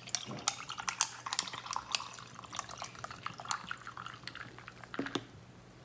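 Goya passion fruit cocktail poured from a can into a tall glass full of ice cubes. The ice crackles and clinks sharply as the liquid runs over it, and the pour ends about four and a half seconds in.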